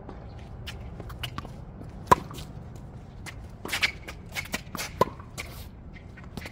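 Tennis rally on a hard court: a sharp, loud racket strike on the ball about two seconds in and another about five seconds in, each with a brief ringing ping. Shoes scuff and shuffle on the court surface in between.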